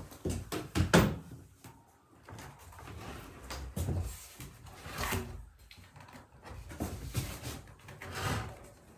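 Footsteps and sharp knocks on a wooden plank floor, the loudest about a second in, then several longer scraping rubs as a board-and-batten wooden barn door is handled and shifted on the floor.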